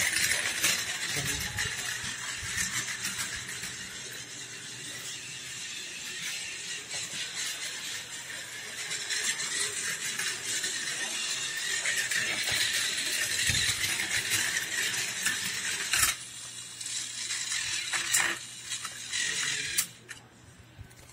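A battery-powered toy model of a Tokyo Metro 13000 series train running on plastic track: a steady high whine from its small gear motor, with the rattle of the cars along the rails. A few sharp clicks come near the end, and the sound cuts off suddenly just before the end as the train is taken in hand.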